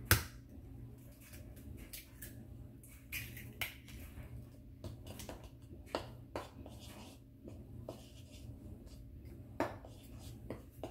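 An egg cracked sharply against the edge of a cutting board just after the start, then scattered light clicks and taps of eggshells and of the batter being worked in a mixing bowl.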